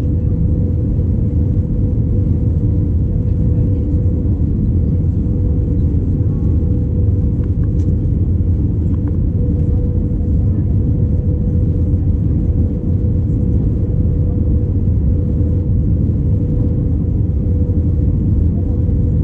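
Cabin noise inside an Airbus A319-111 in flight: the steady, even rumble of its CFM56 engines and the airflow past the fuselage, with a steady hum running through it.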